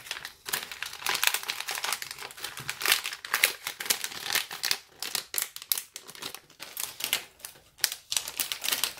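Thin clear plastic zip-top bags crinkling and rustling as they are handled, in irregular crackles with small clicks.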